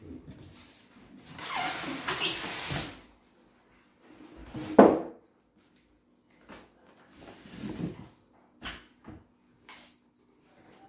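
Styrofoam packing and a cardboard box being handled while an embroidery machine is unpacked: foam and cardboard rubbing and scraping, with one sharp, loud knock about halfway through and a few lighter knocks and clicks near the end as the plastic embroidery unit is lifted out.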